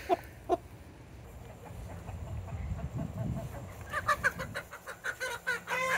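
Hens clucking: a few short clucks near the start, then from about four seconds in a quick run of loud, agitated squawks, typical of a hen protesting at being caught.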